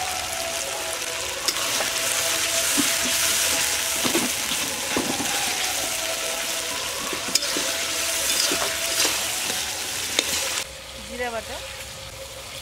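Spice paste (masala) sizzling in oil in a large aluminium kadai while it is fried down, stirred and scraped with a metal spatula, with a few sharp clicks of the spatula against the pan. About ten seconds in, the sizzle drops abruptly to a quieter frying.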